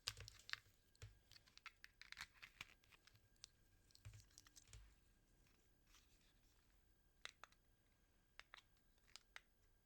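Faint handling noises: scattered small clicks and short rustles as a small handheld device and its bits are fiddled with, busiest in the first few seconds.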